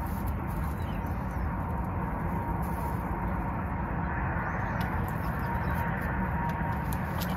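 Young chickens, Barred Plymouth Rock pullets about ten weeks old, peeping softly now and then over a steady background rush.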